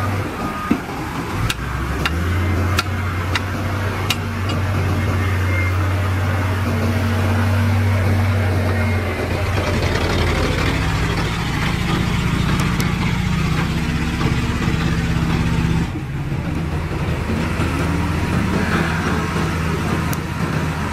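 Heavy diesel engines of earthmoving machines running steadily, with several sharp clicks or knocks in the first few seconds. The engine note shifts about halfway through and changes abruptly near the end.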